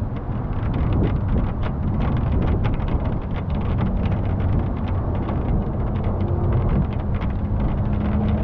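Vehicle running along with a steady low engine hum and wind rushing over the microphone, with scattered sharp ticks throughout.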